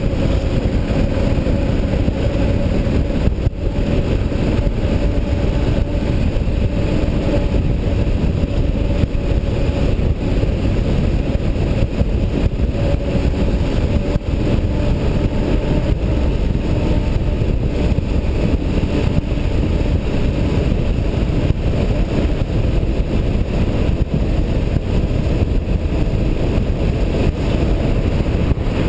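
Motorcycle riding at a steady speed: the engine runs evenly under a loud, constant rush of wind noise on the mounted camera's microphone.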